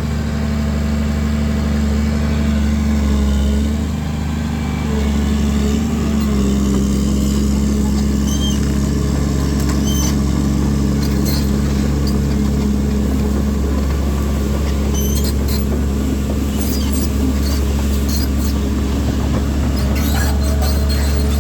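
Caterpillar 336D2 excavator's diesel engine running steadily, with scattered short squeaks and clicks in the second half.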